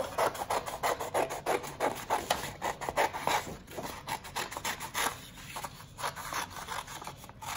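Scissors snipping through paper: a long run of short, irregular cuts, with the sheet rustling as it is turned along the curve.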